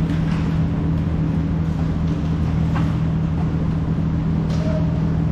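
Steady low drone of an indoor hockey rink's ambience, with a few faint clicks of hockey sticks on the play.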